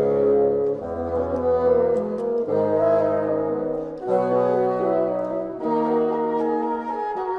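Bassoon quartet playing sustained chords, the four parts moving together to a new chord every one to two seconds, with the lowest bassoon dropping to a deep note about a second in.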